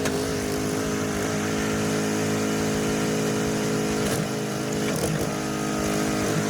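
Engine of a hydraulic log splitter running at a steady pitch, with a few short sharp knocks over its second half.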